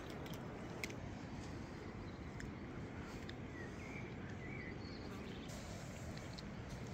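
Cat eating raw chicken, with a few sharp clicks of chewing, over a steady outdoor background hiss. A few faint, short high chirps come around the middle.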